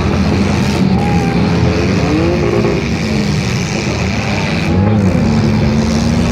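Several demolition derby cars' engines running together in a loud, continuous din, their pitch rising and falling as they rev.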